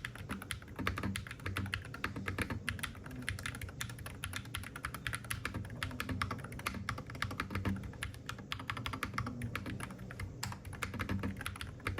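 Steady, fast typing on an Akko TAC75 HE 75% keyboard with magnetic Hall-effect switches: many keystrokes a second in a continuous run, a typing sound test.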